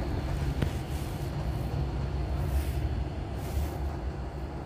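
Electric commuter train running past a station platform: a steady low rumble with a faint hum.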